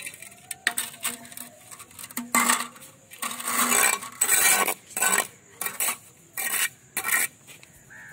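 Steel mason's trowel scraping and clinking against mortar, bricks and the concrete floor in repeated short, irregular strokes, cutting away and gathering up leftover cement mortar from a newly laid brick wall.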